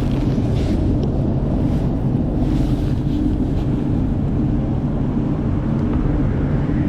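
Bass boat outboard motor running steadily, with wind buffeting the microphone.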